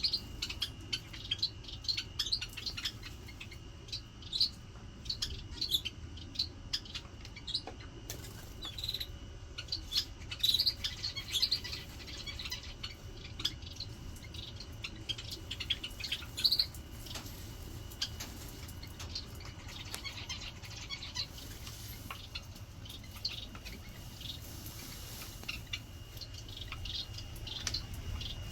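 Small aviary birds chirping, many short high chirps at irregular intervals, over a steady low hum.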